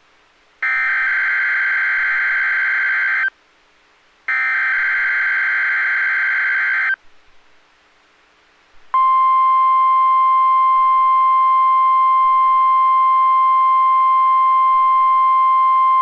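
NOAA Weather Radio Required Weekly Test: the last two of three EAS/SAME header data bursts, harsh buzzing digital screeches of about 2.7 s each about a second apart, then after a pause of about two seconds the steady 1050 Hz warning alarm tone starts about 9 s in and holds.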